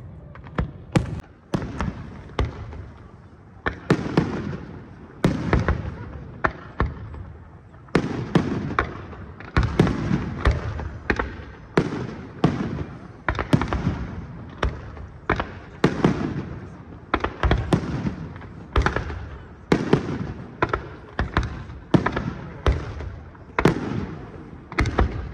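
Aerial firework shells bursting in a continuous display: one or two sharp bangs a second, each followed by a low rumbling echo.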